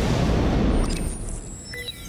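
A deep rumbling boom swells up and fades away over about a second, a transition sound effect as the music drops out. It is followed near the end by short high electronic blips and sweeping tones.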